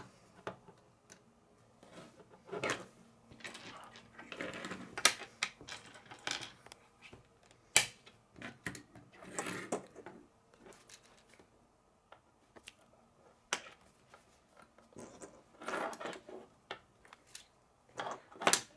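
K'nex plastic rods and connectors being handled and snapped together on a wooden table: irregular sharp clicks and knocks with short rustles of loose pieces.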